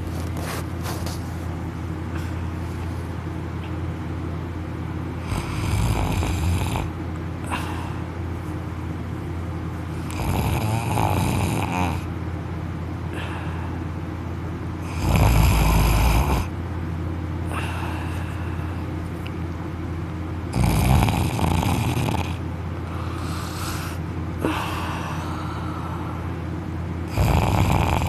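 A man snoring loudly in deep sleep, lying on his back with his mouth wide open so that his soft palate and uvula vibrate. Five long snores come about every five seconds over a steady low hum.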